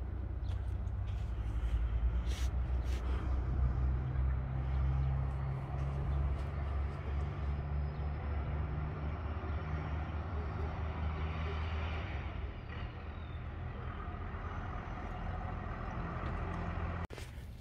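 Low, steady rumble of a motor vehicle's engine, which stops abruptly near the end.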